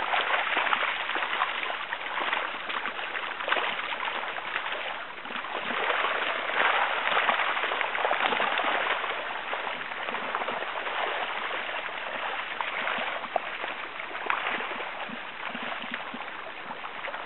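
Shallow creek water running and trickling over a gravel bed, a steady rushing with small splashy ripples.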